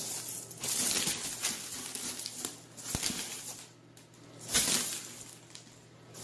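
Small dry rings rustling and clattering as an animal digs and burrows through a tub full of them, in uneven bursts with a louder surge about a second in and another past the middle.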